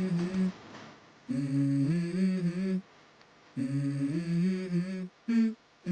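A voice humming a short melody of held notes that step up and down, in repeated phrases of about a second and a half with brief pauses between.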